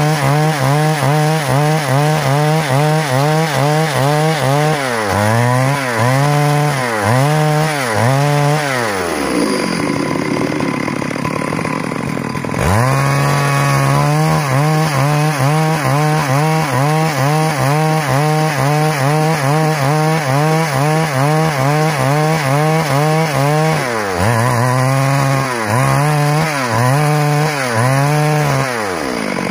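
Stihl MS 382 two-stroke chainsaw running at full throttle while ripping along a log. From about four seconds in, the revs rise and fall about once a second; around nine seconds in it drops to idle for a few seconds, then revs back up and runs steadily, with more surges near the end before it drops again.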